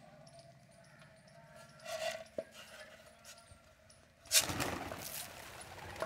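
A flock of pigeons taking off together in a loud, sudden clatter of wingbeats about four seconds in, fading over about a second. A shorter, fainter sound comes about two seconds in.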